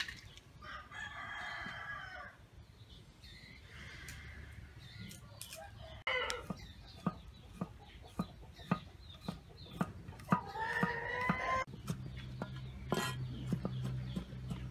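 A rooster crows once, then a cleaver chops garlic cloves on a round wooden chopping board in quick, regular strokes, and a rooster crows again partway through the chopping.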